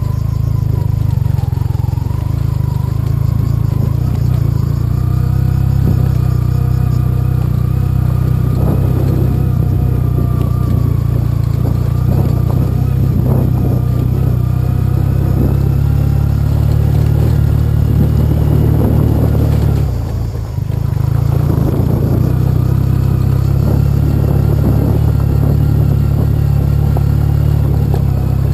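Yamaha TDM 850 parallel-twin engine running steadily as the motorcycle rides a rough gravel track, with knocks and rattles as it rolls over stones. The engine sound drops briefly about two-thirds of the way through, then picks up again.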